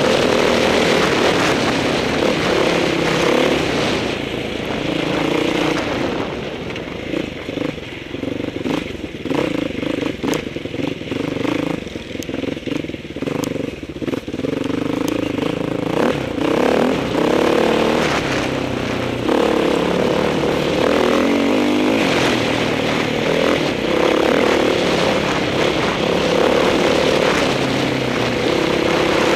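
Off-road motorcycle engine running as the bike rides a rough dirt trail, heard from a helmet camera, the revs rising and falling with the throttle. For several seconds in the middle the engine eases off and quietens, with scattered knocks and clatter from the bike over the uneven ground, before it runs harder again.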